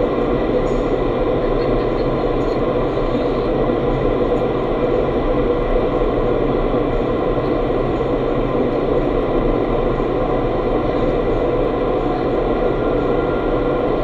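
Steady rush of high-speed air inside an indoor skydiving wind tunnel's flight chamber, blown up by the tunnel's fans, with a few faint steady hum tones running through it.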